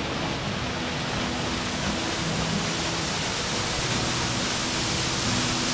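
Close-up waterfall, a steady, unbroken rush of falling water.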